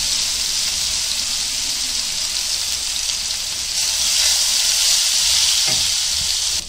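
Ginger-garlic paste sizzling in hot oil, a steady hiss that grows louder about four seconds in as it is stirred, then drops away sharply at the end.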